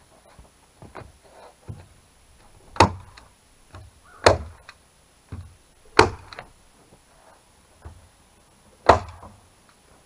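Hammer blows on the board wall of a small wooden shanty: four loud, sharp strikes spaced one and a half to three seconds apart, with lighter knocks between them.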